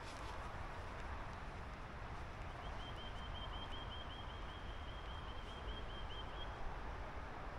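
A bird calling: a rapid, even series of short high notes, about five a second, that starts a couple of seconds in and lasts about four seconds. Underneath is a steady outdoor background hiss with a low rumble.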